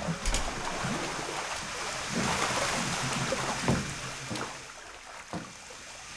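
Water splashing as a hand landing net is dipped into a fish tank and lifted out. The splashing is loudest about two to three seconds in, then dies down.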